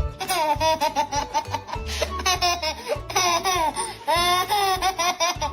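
A baby laughing in repeated high-pitched bouts, over background music.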